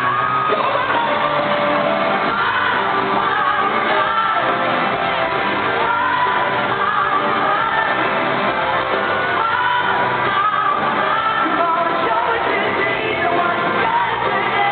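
Live pop-rock band playing a song with lead vocals in a large arena, with the audience shouting along; the recording sounds dull, with no high treble.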